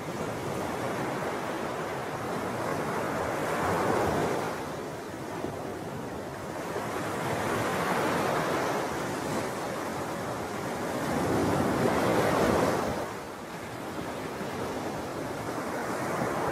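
Wind and small waves washing on a lake shore: a toneless rushing noise that swells and eases about every four seconds.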